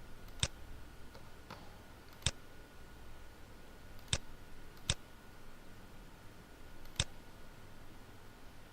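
Computer mouse clicking: five single sharp clicks at irregular intervals, over a faint steady hum.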